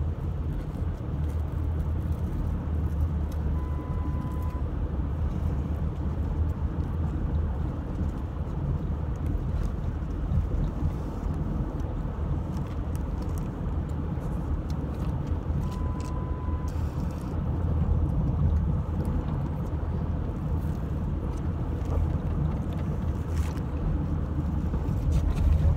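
Steady low rumble of a car heard from inside the cabin. Two faint, short beeps, each about a second long, come about twelve seconds apart.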